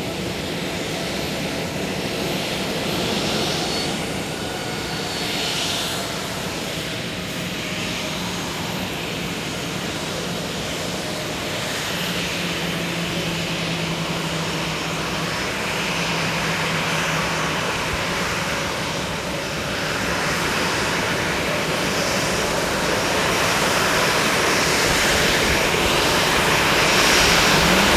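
Boeing 737 airliner's turbofan engines running at low taxi power as the jet taxis. The steady rushing jet noise, with a faint whine, grows louder through the second half as the aircraft comes closer.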